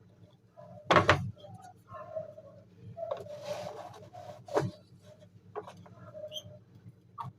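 Knocks and clunks of parts being handled and set down on a work surface, the loudest about a second in, with a short scraping sound in the middle.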